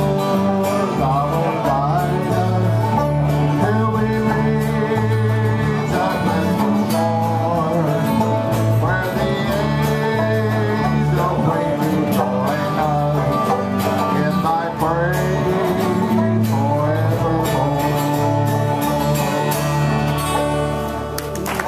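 Old-time string band playing a country/bluegrass tune: acoustic guitar strumming, an electric bass guitar walking a steady bass line and a banjo picking, with voices singing along. The playing eases off near the end as the song winds down.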